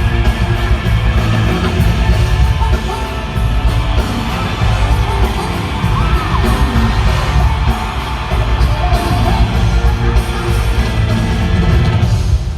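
Live K-pop concert: loud pop music with a heavy beat and singing, with the crowd yelling and whooping over it.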